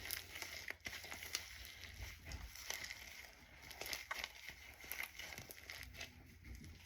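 Hands squishing and stretching a green foam slime, giving off irregular crackling, popping clicks.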